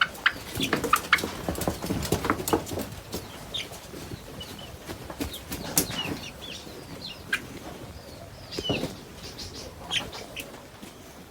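A pen of seven-week-old chickens, very active: short calls and chirps over a run of quick knocks and wing flaps, busiest in the first three seconds.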